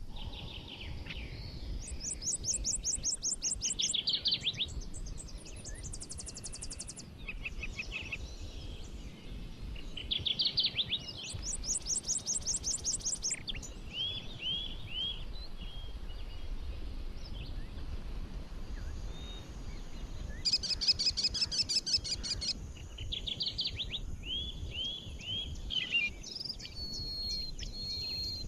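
Several forest songbirds singing and chirping. Quick, high trills come every several seconds, along with runs of short falling notes and a held whistle near the end, over a steady low rumble.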